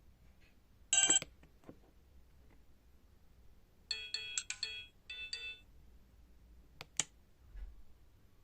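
Alcatel OT-385JA mobile phone's speaker sounding brief snatches of ringtone melody. There is one short burst about a second in and a quick run of short electronic notes about four seconds in, each cut off after a moment. A sharp click comes near the end.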